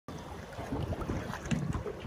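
Wind buffeting the microphone, with water splashing and lapping against the side of an aluminium boat hull on rippled open water.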